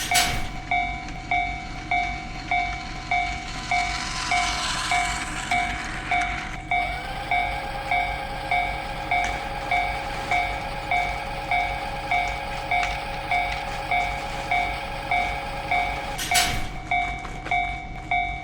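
Railroad crossing warning bell ringing steadily, about two dings a second. A passing train's rushing noise rises for a few seconds around four seconds in, and a steady whine follows until a sharp click near the end.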